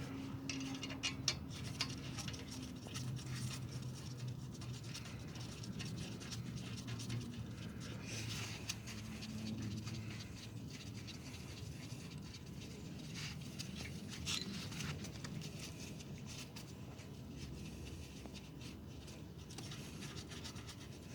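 Faint scattered metal clicks and scraping of a wrench on the brake caliper bolts as they are screwed back in, over a low steady hum.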